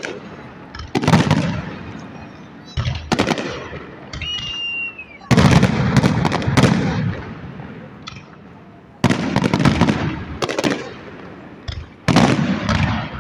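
Fireworks salute going off: a series of about eight loud bangs every second or two, each dying away over a second or so, with a short high whistle about four seconds in.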